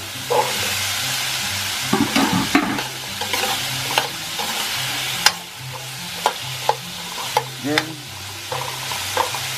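Cubed squash frying in a hot wok with sautéed aromatics, sizzling steadily, while a metal ladle stirs it, scraping and clinking against the pan several times.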